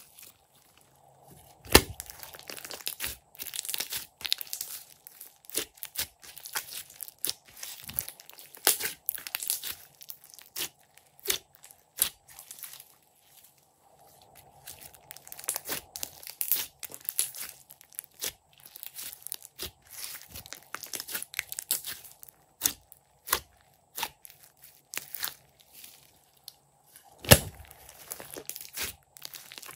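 Glossy slime being squeezed, stretched and pressed by hand, with dense sticky crackling and popping as air pockets burst, broken by a few brief pauses. A louder pop comes about two seconds in and another near the end.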